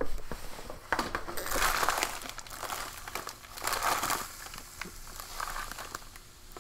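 Clear plastic inner bag of an MRE crinkling as it is picked up and turned over in the hand, with louder bouts about a second and a half and four seconds in. Loose contents shift inside with an unexplained noise.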